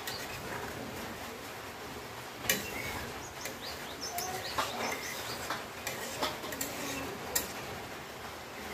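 Flat metal spatula stirring a thick pork and potato curry in a steel kadai, with several sharp clinks and scrapes against the pan, most of them in the second half. Birds chirp in the background.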